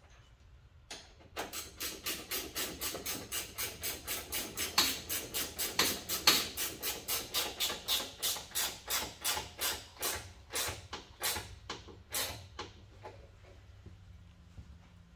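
Sharp clicks in a steady rhythm, about three or four a second, starting about a second in, spacing out and stopping near the end.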